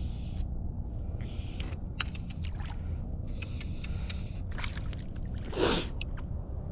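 A hooked smallmouth bass splashing at the surface as it is played in on a fly rod beside the boat. The splashes come as a run of short slaps about two seconds in, with a louder splash shortly before the end, over a steady low rumble of water against the hull.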